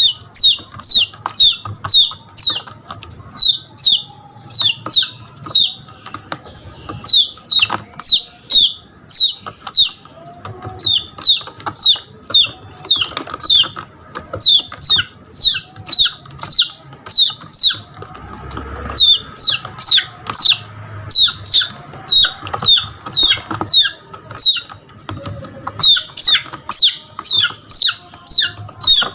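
Red junglefowl chick peeping in distress: a long series of loud, high peeps, each falling in pitch, about two to three a second, in runs with short pauses. It is a lost chick calling for its mother, used as a lure call for junglefowl.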